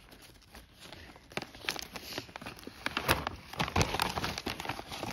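Gift wrapping paper being torn and crinkled by hand as a present is unwrapped: faint at first, then a busy run of sharp rustles and crackles from about a second and a half in.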